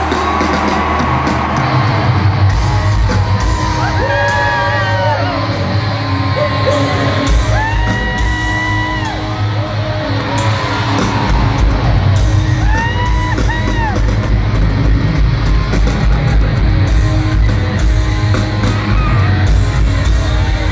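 A glam metal band plays live and loud through an arena PA, heard from within the audience, with heavy drums and bass under sung vocal phrases. The low end fills out a couple of seconds in. Crowd yells and whoops come through over the band.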